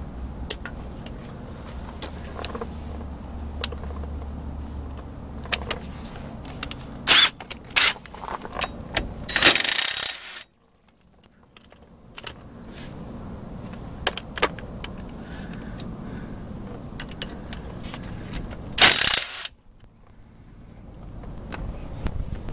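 Metal clinks of a socket and tools working the axle retainer nuts of a 7.25 Mopar rear axle, with two short bursts from a cordless drill-driver spinning the 9/16 nuts off. Each burst cuts off abruptly.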